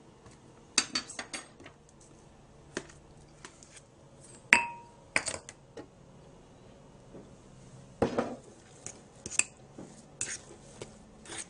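A metal spoon clinking and scraping against a mixing bowl and utensils as cream cheese, sugar and vanilla are stirred together. It comes as scattered light knocks, with one sharper ringing clink about four and a half seconds in.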